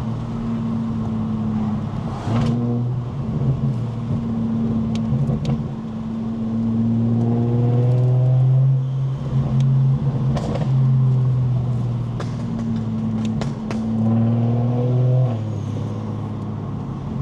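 Single-turbo BMW 335is N54 inline-six engine pulling through the gears with its dual-clutch gearbox: the engine note climbs, then drops sharply at each upshift, several times. A few short sharp clicks come in between.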